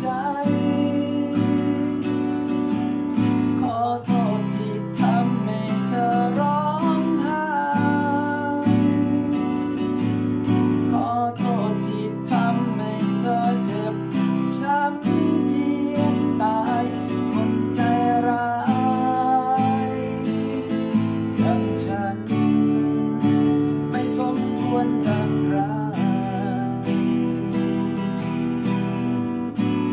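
Acoustic guitar strummed in a steady down-down-up-up-down-down pattern, the chords changing every few seconds, with a man's voice singing a melody along with it.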